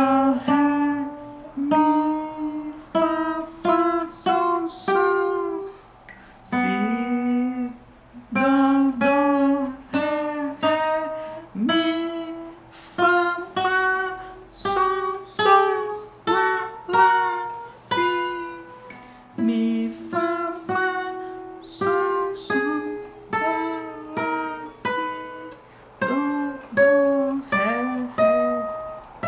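Acoustic guitar playing single plucked notes one after another, about one a second, each left to ring. The notes step up and down the fretboard, sounding the note at each fret in turn.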